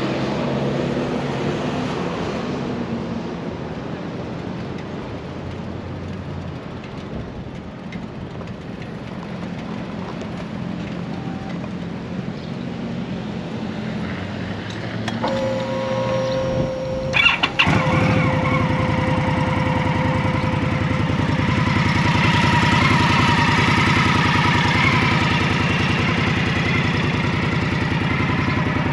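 2015 Indian Scout's liquid-cooled V-twin being started. A steady whine comes on about halfway through, the starter cranks briefly, and the engine catches and settles into an even idle, growing louder for a few seconds before easing back.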